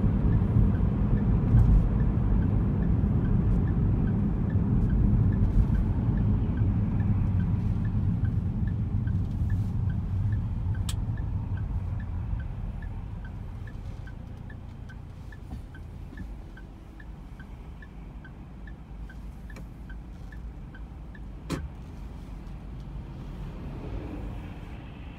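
Car interior road and engine noise: a steady low rumble that dies down about halfway through as the car slows and comes to a stop. A light, regular ticking runs through it, about three ticks a second, and there are two sharp clicks.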